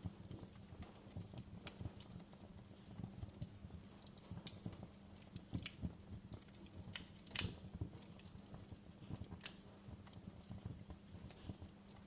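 Wood fire crackling, with irregular small pops and snaps; the sharpest snap comes about seven seconds in.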